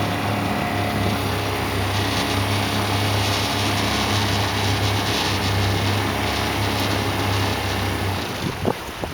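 Small outboard kicker motor running steadily at low throttle in reverse, pushing the boat backwards. Its note drops away about eight seconds in, followed by a couple of light knocks near the end.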